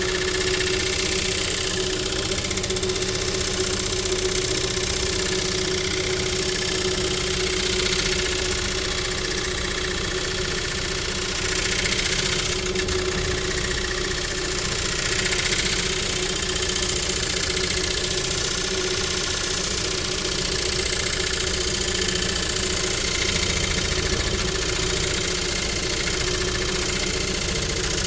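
A machine running steadily with a constant hum, with no change in speed.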